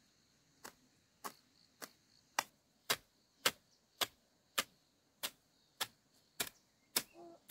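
Garden hoe chopping into the ground in a steady rhythm, about a dozen sharp strikes a little under two a second. A steady high insect drone runs underneath.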